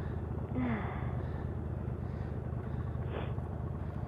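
Motorcycle engine idling steadily, with a brief sniff about three seconds in.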